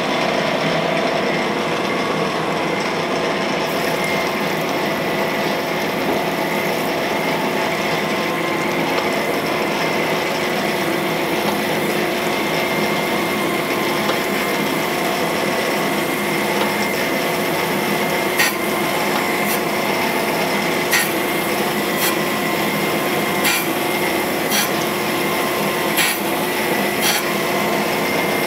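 Cam grinder's wheel grinding a lobe of an FE Ford solid roller camshaft under flowing coolant: a steady grinding hiss over the machine's hum, while an exhaust lobe is roughed in. From about two-thirds of the way through, a sharp tick comes roughly once a second.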